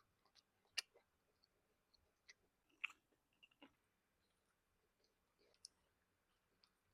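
Near silence broken by scattered faint, sharp clicks, with two louder ones about a second and about three seconds in.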